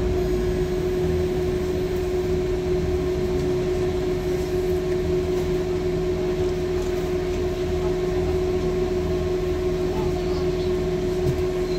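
Inside a Mercedes-Benz O405N2AC city bus under way: steady running noise of the engine and drivetrain, a low rumble beneath a steady humming tone, at an even level.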